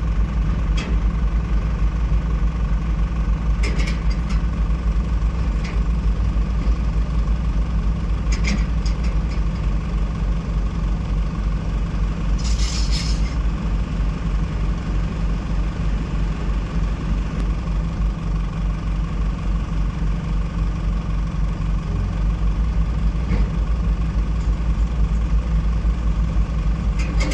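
Heavy diesel engine running steadily at a constant speed, with a short hiss about halfway through.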